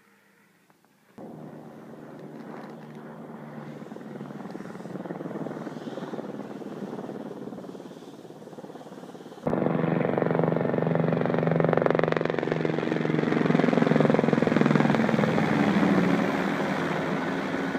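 Rescue helicopter flying overhead: turbine whine and rotor-blade chop. It starts abruptly about a second in, swells, and jumps much louder about halfway through.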